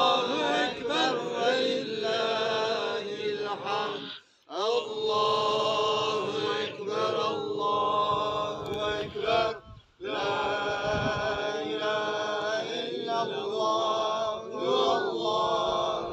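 A man's solo voice chanting a melodic Islamic prayer recitation in long drawn-out phrases. It breaks briefly for breath about four and about ten seconds in.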